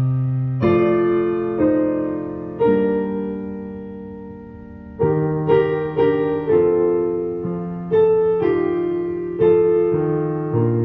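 Slow solo piano background music, with notes and chords struck and left to ring. One chord fades for a couple of seconds before quicker notes pick up about five seconds in.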